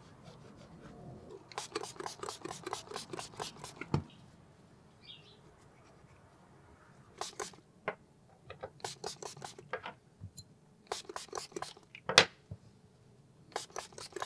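Trigger spray bottle squirting alcohol onto small steel vise parts in rapid runs of short spritzes, about five or six a second, with pauses between runs. A couple of sharp knocks of parts set down on the wooden bench, the loudest about twelve seconds in.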